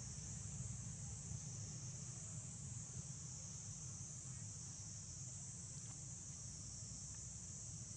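Steady, high-pitched insect chorus buzzing without a break, over a faint low rumble.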